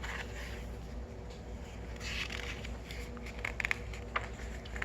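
Picture-book page being turned and handled: paper rustling and a few small clicks over a steady low hum.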